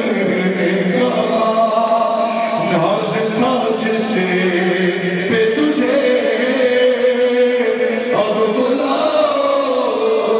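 A noha, a Shia mourning lament, chanted continuously by male voices.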